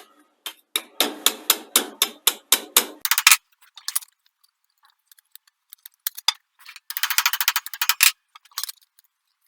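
Hand work on a small sheet-steel patch panel: a run of sharp metallic clicks, about three a second, then a pause and a quick rattling burst of clicks near the end.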